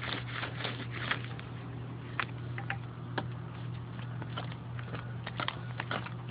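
Light handling noise: irregular soft clicks and taps over a steady low hum.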